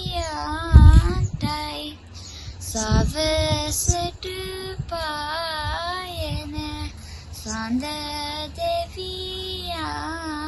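A girl singing Sinhala folk verses (jana kavi) solo, her voice wavering up and down on long held notes. A few low thumps come under the singing, the loudest about a second in.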